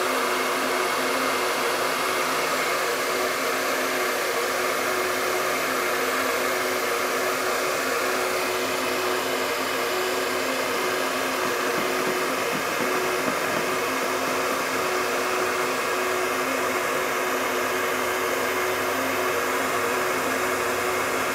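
Electric heat gun running steadily at full heat, a constant fan whirr with a steady hum and no change in pitch or level.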